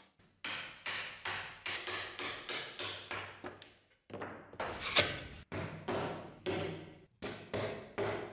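Mallet blows knocking on the old wooden table frame, about two a second. There is a short pause about four seconds in and one louder, sharper crack about a second after it.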